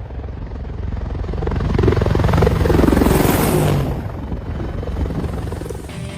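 Helicopter rotor blades chopping in a fast, even beat, swelling louder about two seconds in and fading after about four seconds, as a helicopter passes.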